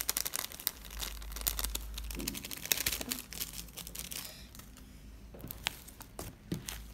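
Rapid crinkling and crackling of a thin clear plastic container as glitter is shaken out of it onto slime, for about the first four seconds. Near the end, a few separate sticky clicks and pops as hands begin kneading the slime.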